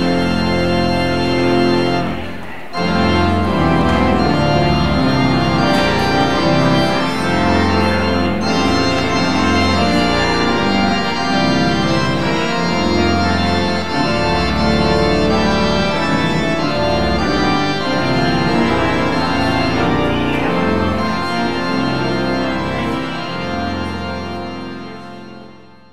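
Church pipe organ playing the postlude in full sustained chords over moving bass notes, with a brief break about two and a half seconds in; the music fades out at the end.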